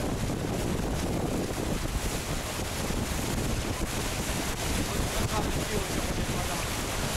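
Steady wind rumble on the microphone aboard a moving motorboat, mixed with water rushing past the hull.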